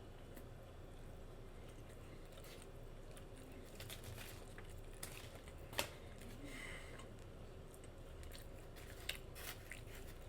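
Faint mouth sounds of a person chewing a bacon cheeseburger, wet smacking with scattered short clicks, one sharper click about six seconds in.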